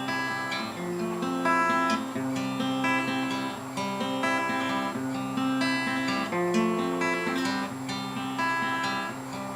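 Acoustic guitar playing an instrumental introduction: chords picked and strummed at a steady rhythm.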